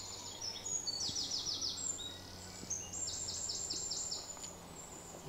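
A small bird singing: two quick runs of short, high, falling notes, about six a second, one about a second in and a longer one about three seconds in, with scattered faint chirps between.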